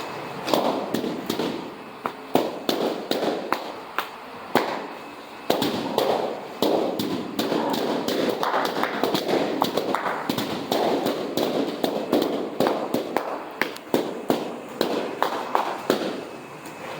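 Many balloons being popped, sharp bangs in quick, irregular succession, often several a second.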